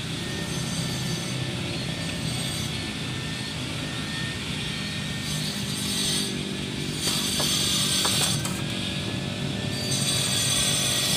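Steady mechanical hum of a motor or engine running, getting a little louder after the middle.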